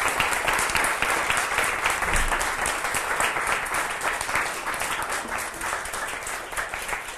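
Audience applauding: many hands clapping densely, slowly easing off toward the end.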